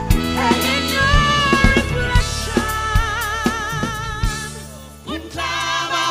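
A singer with a band, over bass and drums; a long note is held with vibrato in the middle, and the music drops away briefly near the end before coming back in.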